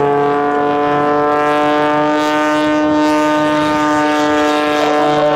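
Oracle Challenger III aerobatic biplane's piston engine and propeller running hard overhead, a steady drone whose pitch rises slightly and then eases.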